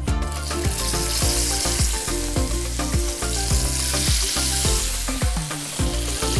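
Paneer tikka skewers sizzling and frying in hot oil in a grill pan; a steady crackling hiss that starts just after the opening. Background music with a steady beat plays underneath.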